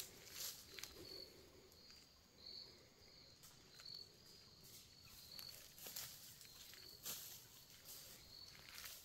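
Faint footsteps crunching through dry fallen leaves, a few irregular crackly steps. Behind them an insect chirps with a short high note about twice a second.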